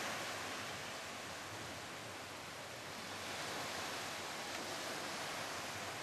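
Steady wash of small waves on a sandy beach, an even hiss that swells and eases gently.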